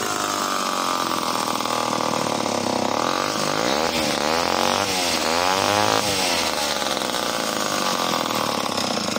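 Vintage Homelite C51 77cc two-stroke chainsaw running at full throttle while cutting wood, its pitch dipping and rising in the middle as the chain loads in the cut, then cutting off suddenly at the end. The engine pulls lazily, which the owner puts down to the saw being down on compression.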